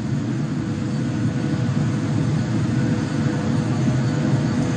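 Kawasaki C-2's twin turbofan engines heard at a distance: a steady, even jet rumble, mostly low, with a faint steady whine above it.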